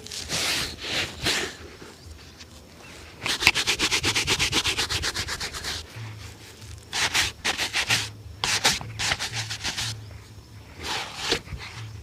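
Shoe leather being rubbed during a shoe shine, in scratchy back-and-forth strokes. There are a few slower strokes at first, then a fast even run of about eight strokes a second, then more groups of strokes.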